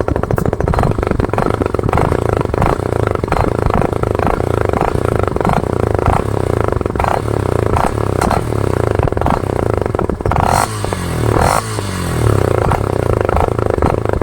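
Yamaha FZ V2's single-cylinder engine running through a modified silencer, with a quick blip of the throttle about ten seconds in. The modification is meant to give a deeper exhaust note.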